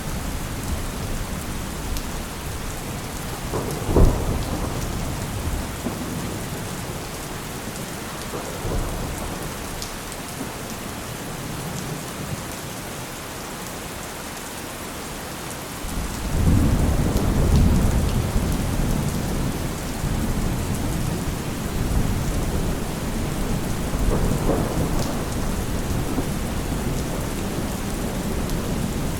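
Heavy rain falling steadily, with a sharp clap of thunder about four seconds in and a long, low rumble of thunder starting about halfway through and slowly fading.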